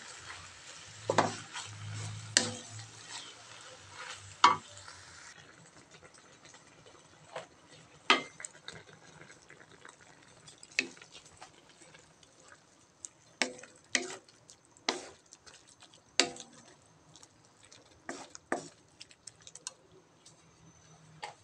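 A wooden spatula stirring and tossing food in a nonstick wok, scraping and knocking against the pan at irregular intervals every second or two. Sizzling under the first few seconds.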